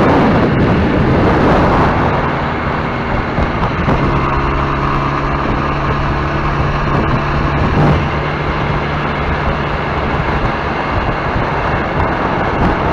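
Motorcycle running on the road, a dense steady engine and road noise, with an even engine hum standing out from about four to eight seconds in.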